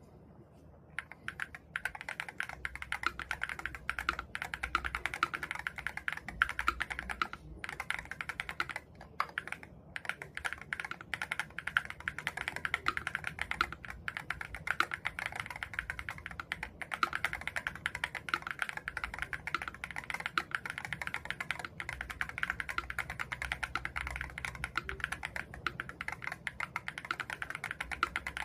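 Fast, continuous typing on a KBD8X MK3 mechanical keyboard in an aluminium housing, starting about a second in.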